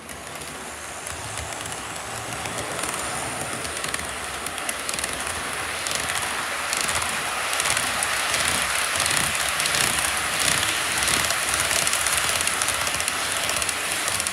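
Model freight train of double-stack container cars rolling past close by: a steady rumble and clatter of wheels on the rails that builds over the first few seconds and then holds, with quick clicks of wheels passing over track joints.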